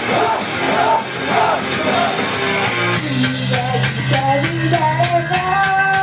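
Loud rock-backed pop song played live, with drums and band. In the second half a melody line steps upward and holds one long note near the end.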